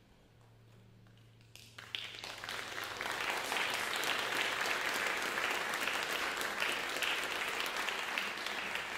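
Audience applauding in a concert hall: after a quiet moment the clapping breaks out about a second and a half in, swells within a second or so, and then holds steady.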